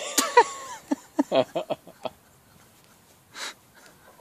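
A cat and a hen fighting, with animal cries: a hiss-like burst, a few cries that bend in pitch, then a quick run of short calls, and another hiss-like burst about three and a half seconds in.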